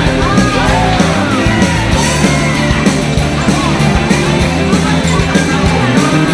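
Loud rock music with a driving beat and distorted guitars, with a voice or lead line weaving over it.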